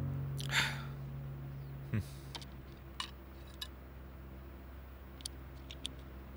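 A handful of small, sharp clicks spaced irregularly, from a pair of eyeglasses being unfolded and put on. Near the start there is a brief whoosh, then a soft low thump.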